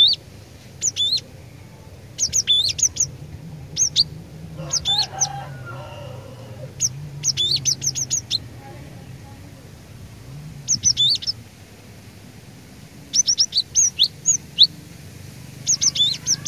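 Cinereous tit (glatik batu) singing in loud, short bursts of rapid high notes, each phrase repeated every second or two. A lower, brief call sounds about five seconds in.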